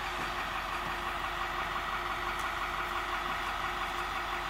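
School bus engine idling, a steady, unchanging drone.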